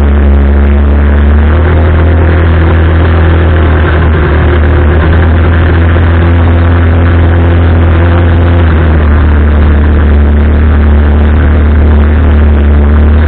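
Arora Herkul 200cc ATV's single-cylinder four-stroke engine running loud and steady, its pitch shifting slightly a couple of times.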